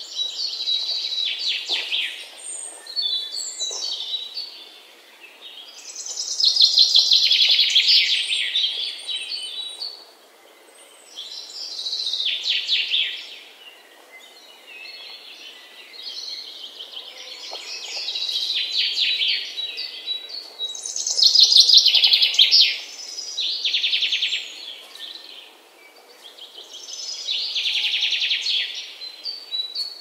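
A songbird singing high, fast phrases of one to three seconds, repeated every few seconds, over a steady faint background hiss.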